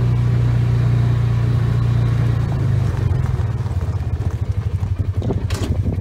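Polaris utility vehicle's engine running steadily while driving, then dropping about three seconds in to a rapid, even pulsing idle as the vehicle pulls up and stops.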